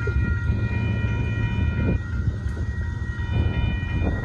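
Union Pacific freight train with a steady low rumble, and several faint, steady high tones above it.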